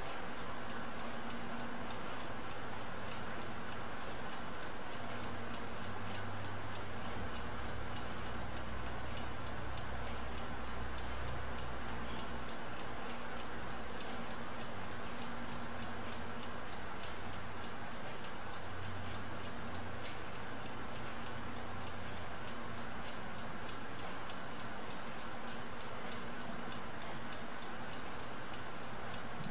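Smiths mechanical stopclock running, with rapid, even ticking over a faint low hum.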